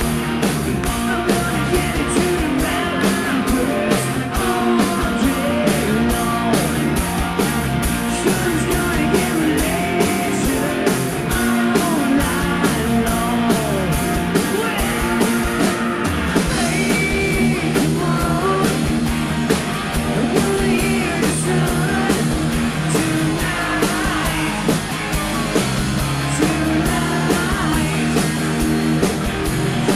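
A rock band playing live: electric guitars, bass guitar and a drum kit keeping a steady beat.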